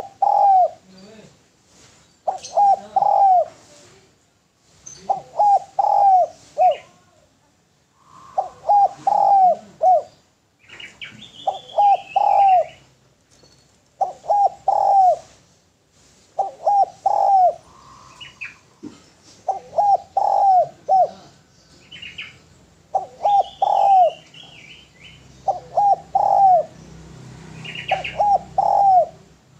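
Caged spotted dove (derkuku) cooing over and over in short phrases of three or four low coos, a phrase every two to three seconds. Other small birds chirp faintly in the background.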